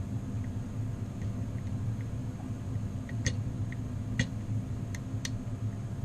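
Steady low hum of a home HVAC air handler running, with four or five light, sharp clicks from about three seconds in as a tubular lock and its pick are handled.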